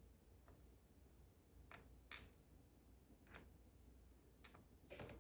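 Faint, scattered small metallic clicks of tools and pin parts working in a Goal D9 dimple lock as it is taken apart pin by pin, with the two clearest clicks about two seconds and three and a half seconds in.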